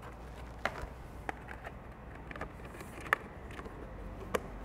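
Plastic brining bucket and its lid being handled and fitted on: several light plastic clicks and taps, the sharpest about three seconds in, over a low steady hum.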